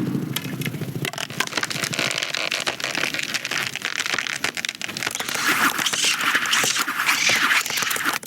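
Layered film sound effects: a dense run of crackles, scrapes and sharp clicks, growing brighter and louder about halfway through.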